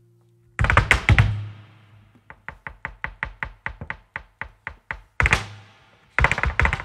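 Flamenco dancer beating out a farruca rhythm on the stage floor. A sharp flurry of strikes about half a second in, then an even run of taps about six a second, then two more hard flurries near the end.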